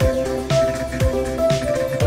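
Background music: an electronic track with a steady beat of about two beats a second over sustained synth notes.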